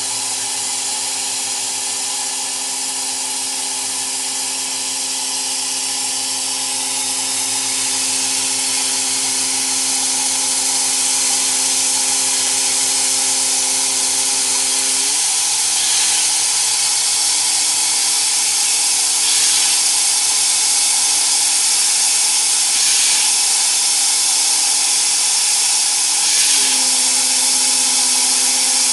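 Steady hiss of a gas-dynamic spraying machine's compressed-air jet blasting abrasive onto a steering rack to clean off corrosion. Under it runs a motor hum that drops to a lower pitch about halfway through and goes back up near the end.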